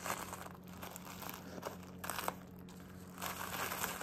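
Tissue paper crinkling and rustling in short bouts as it is lifted and folded by hand.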